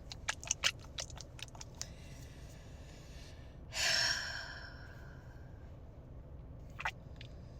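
A run of small sharp clicks over the first two seconds, then a loud breathy sigh about four seconds in, and a single click near the end.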